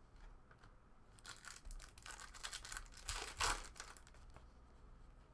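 Foil trading-card pack being torn open and crinkled by hand, a crackling that builds for a couple of seconds, loudest just past the middle.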